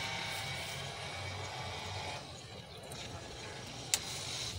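Quiet outdoor background with a faint low hum that fades about two seconds in, and one sharp click near the end.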